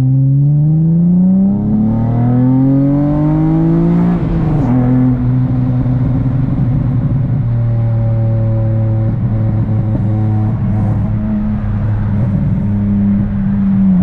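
Acura TL's V6 engine pulling under acceleration, its pitch climbing steadily for about four seconds, then dropping abruptly as at an upshift and running at a steadier, lower pitch. Near the end the pitch dips slightly.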